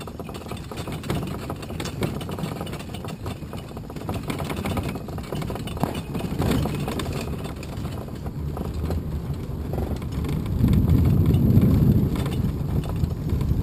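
Engine of a Seagrave-badged fire-engine-style vehicle running as it drives along, a steady low rumble that gets louder about ten seconds in.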